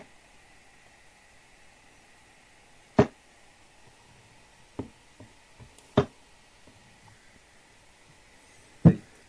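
Steel-tip darts striking a Winmau Blade 5 bristle dartboard: two sharp thuds about three seconds apart, a few fainter taps between them, and another sharp knock near the end.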